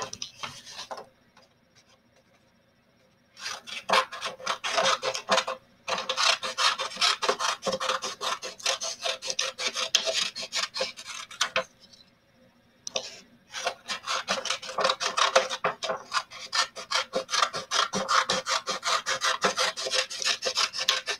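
Scissors snipping through a sheet of paper to cut off a long strip: rapid snips in two long runs, starting about three seconds in, with a short pause about halfway.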